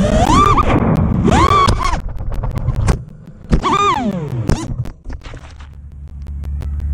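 FPV quadcopter's brushless motors whining, their pitch swooping up and down with the throttle, then a sharp thunk about three and a half seconds in as the quad crashes into the grass. One more brief rev follows as it tumbles, and from about five seconds in only a low steady hum is left.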